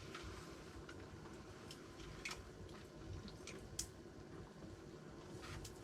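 Faint handling noises: a few scattered soft clicks and squishy sounds over a low steady hum, typical of a freshly caught fish being held and unhooked.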